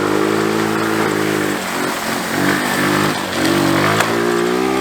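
GY6 scooter engine in a modified Power Wheels Jeep running under throttle. Its pitch holds steady, drops and wavers about halfway through, then climbs again near the end as it is revved.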